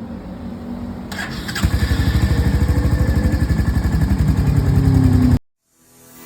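Royal Enfield Hunter 350's single-cylinder engine starting about a second in, then running with an even, steady beat. The sound cuts off suddenly near the end.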